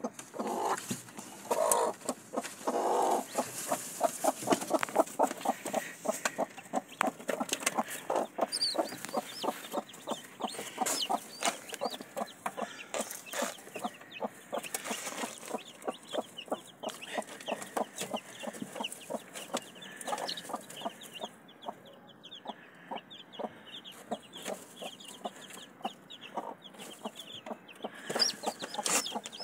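A broody hen clucking in quick, short, repeated calls over her newly hatched chicks, with the chicks' high peeps scattered through.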